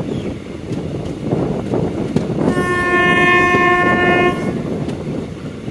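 Train horn sounding one steady blast of about two seconds, starting a little over two seconds in, over the running rumble and clatter of a moving passenger train.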